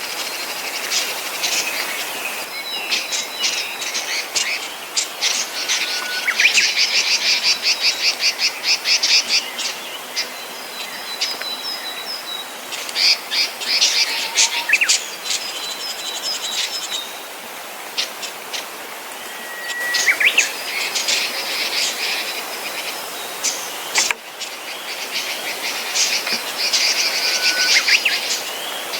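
Small forest songbirds singing: several long phrases of very rapid, high trilling and twittering, with thin, steady whistled notes in between.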